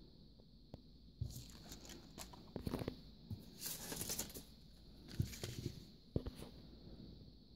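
Paper and cardstock crafts being handled: irregular rustling with several sharp clicks and taps, busiest in the middle.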